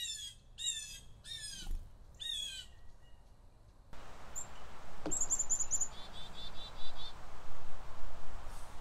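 Four harsh, descending calls, about one every 0.7 s, typical of a blue jay. After about four seconds a steady outdoor hiss of wind comes in, with a soft knock and two quick runs of high-pitched bird chirps.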